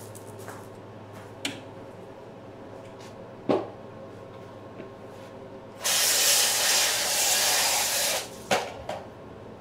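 Running water spraying for about two seconds past the middle, with a few sharp knocks and clunks before and after: a container being rinsed out. A steady low hum lies underneath.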